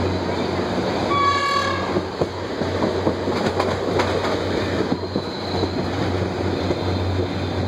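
Passenger train running along the track, heard from inside a coach: a steady rumble with wheels clicking over rail joints about three to four seconds in. A short train horn blast sounds about a second in.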